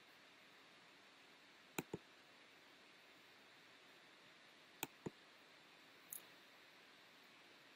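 Computer mouse clicks: two quick double clicks about three seconds apart, then a fainter, higher single click near the end, over faint steady hiss.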